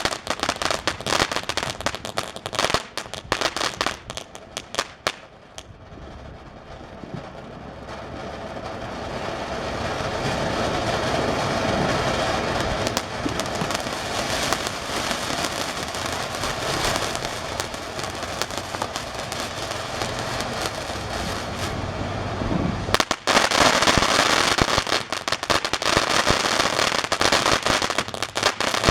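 TNT Countdown fountain firework: dense crackling for the first few seconds, then a steady hissing spray that slowly grows louder. About two-thirds of the way through it breaks suddenly into louder, dense crackling.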